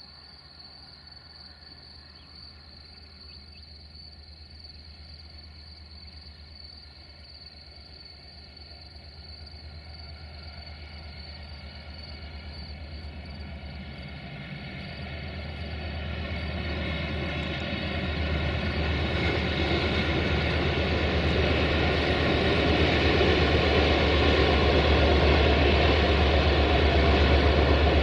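Diesel locomotive of CFR class 64 approaching with a passenger train, its engine hum growing steadily louder and loudest near the end.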